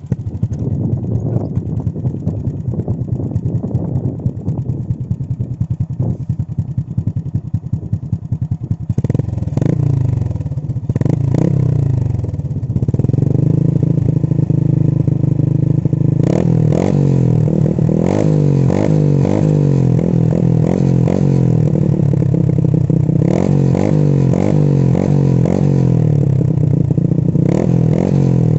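Honda Nice 125's single-cylinder four-stroke engine running through an open Apido Powerpipe exhaust with the silencer removed. It idles for the first several seconds, is brought up in revs around ten seconds in, then is blipped over and over at higher revs without being revved hard.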